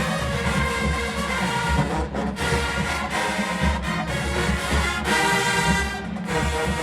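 Marching band playing: brass over a heavy drum line, with brief breaks about two seconds in and again about six seconds in.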